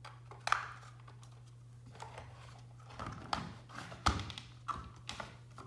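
Plastic clicks and taps from handling a hardwired smoke detector as its wiring plug is reconnected and the unit is fitted back in place. There is a sharp click about half a second in, then a cluster of knocks and taps over the last two and a half seconds, all over a steady low hum.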